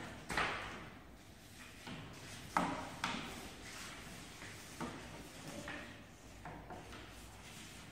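White cane with a marker pen taped to its tip sweeping and tapping across paper on a concrete floor, mixed with footsteps: irregular scrapes and taps, one every second or so.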